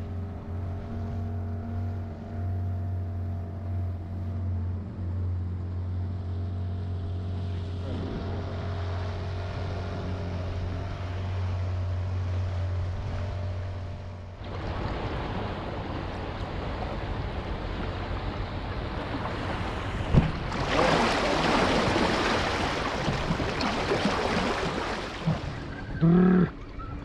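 Outboard motor on an inflatable boat running at a steady hum. About halfway it gives way abruptly to a rushing wash of water and wind, loudest in the last third, with one sharp click in it.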